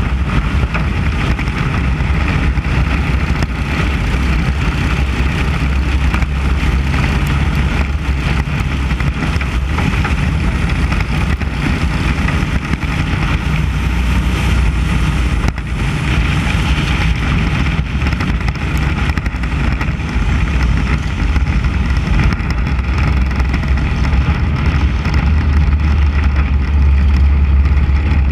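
A Mini Cup race car's engine running hard at racing speed, with its sound taken in through a hood-mounted camera. It runs steadily and grows a little louder near the end.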